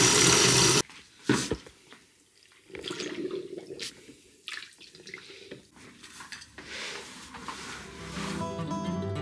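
Tap water running hard into a plastic spin-mop bucket, shut off abruptly about a second in, followed by a single clack. Then quieter, intermittent sloshing and scrubbing as the mop is dunked in the bucket and pushed across the floor, with acoustic guitar music coming in near the end.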